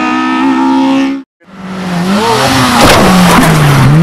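Honda Civic Type R EP3's four-cylinder engine held at high revs as the car goes past, its note rising slightly before cutting off abruptly about a second in. After a short gap, a race car engine falls and rises in pitch, with tyre squeal.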